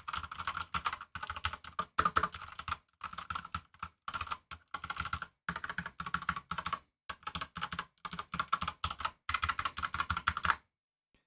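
Typing on an Epomaker GK96S mechanical keyboard with Gateron Brown switches: rapid runs of key clacks with brief pauses, stopping abruptly near the end.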